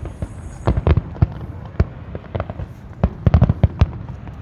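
Fireworks going off in a rapid, irregular series of sharp bangs and crackles, thickest in a dense cluster about three seconds in.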